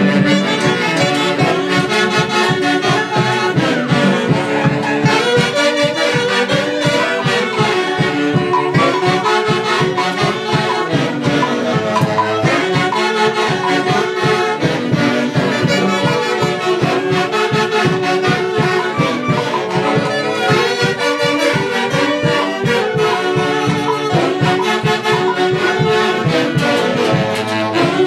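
Loud fiesta band music: wind instruments play a melody over a steady beat.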